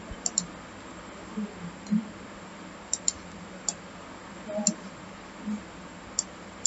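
Computer mouse and keyboard clicks: short sharp clicks, single and in quick pairs, spaced irregularly over a faint steady low hum.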